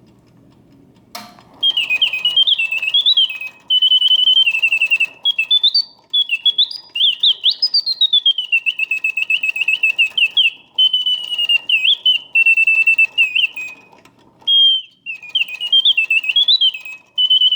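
Vintage all-mechanical German singing bird alarm clock going off. A click about a second in is followed by the mechanical bird singing: rapid whistled chirps and trills with rising and falling glides, in phrases broken by short pauses.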